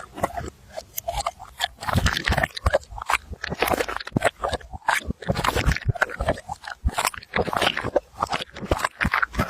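A dog chewing and crunching, with quick, irregular crunchy bites.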